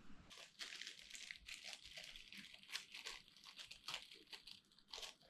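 Faint crinkling and rustling handling noise: a run of small, quick crackles.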